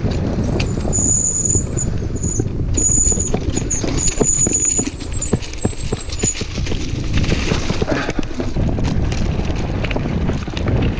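Mountain bike riding fast down a dirt and leaf-strewn trail: tyres rumbling and the bike rattling and knocking over bumps, with wind buffeting the microphone. A high squeal comes and goes in the first few seconds.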